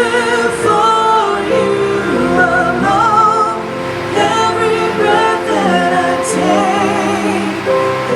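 Church worship song: a woman singing a slow melody with vibrato over sustained instrumental accompaniment.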